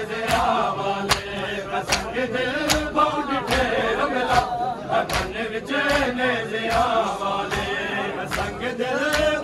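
Male voices chanting a noha (Urdu/Punjabi mourning lament) together. A crowd beats its chests in unison (matam), with a sharp slap on every beat, a little more than once a second.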